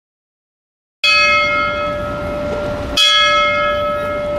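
A bell struck about a second in, its several tones ringing on, then struck again about two seconds later.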